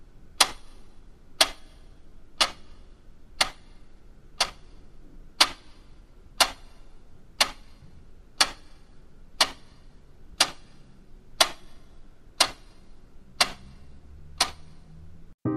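A clock ticking steadily, one sharp tick every second, about fifteen in all.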